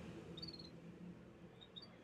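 Canaries giving a few faint, brief high chirps, about half a second in and again near the end, over a low steady hum.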